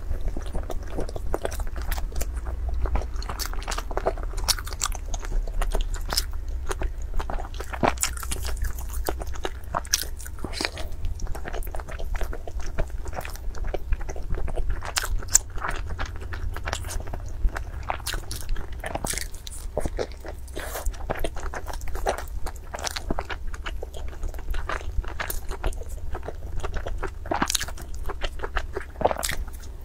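Close-miked eating: biting and chewing a glossy brown wrapped roll, with irregular crunches and wet mouth crackles, over a steady low hum.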